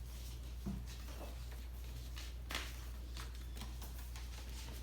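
Pages of a picture book being handled and turned: a few soft rustles and small taps, the clearest about two and a half seconds in, over a low steady electrical hum.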